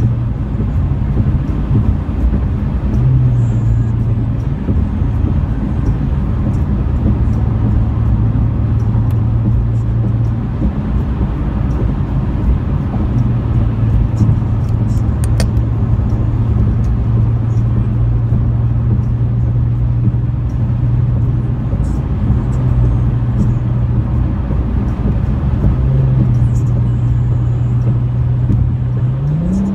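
Car engine drone and tyre road noise heard from inside the cabin while cruising at highway speed. The low engine hum holds steady and rises in pitch near the end as the car accelerates.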